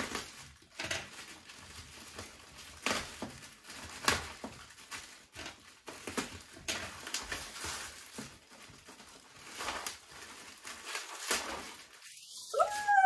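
Plastic mailer bag being cut open with a small cutter and pulled apart, with irregular crinkling and rustling strokes. Near the end a dog gives a short, high whine that bends up and then down, the loudest sound here.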